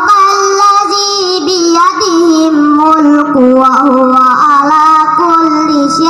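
A young boy singing into a microphone over a loudspeaker: a slow, ornamented melody with long held notes that bend and waver.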